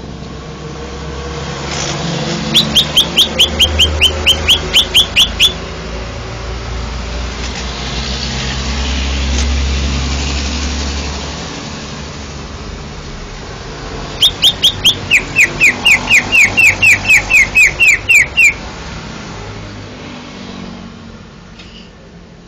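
Cucak ijo (leafbird) singing two bursts of fast, loud, repeated down-slurred notes, about five a second. The second burst is longer and drops lower in pitch after its first few notes. A low rumble of background noise runs under the song.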